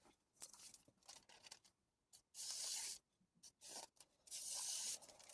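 Abrasive rubbing on a wet whetstone: two long scraping strokes about two seconds apart, with lighter scratches between.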